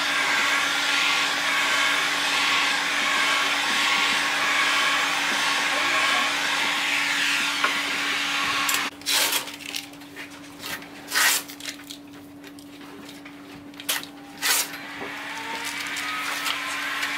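Handheld heat gun blowing hot air with a steady hiss, used to warm a printed adhesive film onto a curved panel. About halfway through it falls away, and a few short, loud whooshes follow before a steady hiss rises again near the end.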